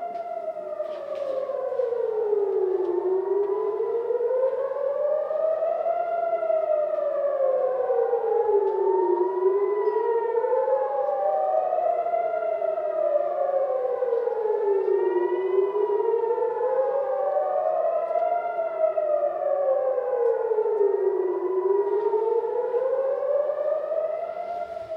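Israeli civil defence air-raid siren sounding a drill alert: a loud rising-and-falling wail, each rise and fall taking about six seconds, with more than one siren heard overlapping out of step.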